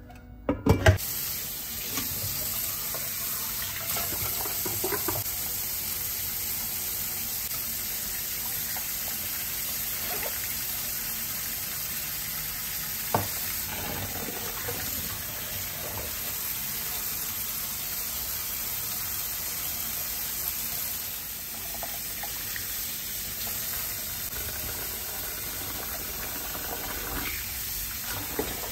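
Kitchen tap running steadily into a rice cooker's inner pot in a stainless steel sink while the pot is scrubbed with a sponge and then rice is rinsed in it. A few knocks of the pot and lid against the sink come near the start.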